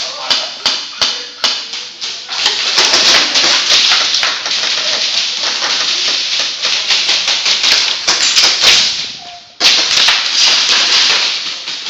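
Airsoft guns firing: single shots about three a second, then long strings of rapid fire that break off briefly near the end and start again.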